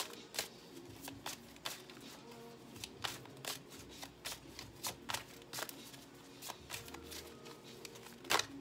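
Tarot cards being shuffled and handled by hand: a run of irregular, sharp card snaps and flicks.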